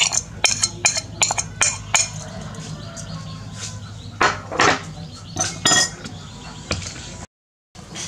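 Irregular light clinks and taps against a stainless steel bowl, with a few fuller knocks about midway, over a steady low hum; the sound cuts out briefly near the end.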